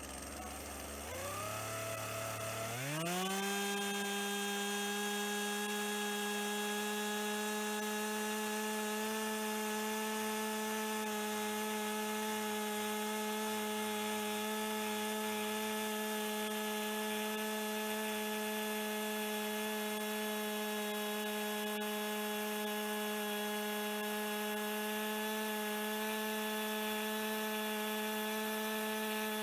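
Two-stroke chainsaw revving up from idle to full throttle about two to three seconds in, then running at a steady high pitch while it cuts crosswise through a cedar log.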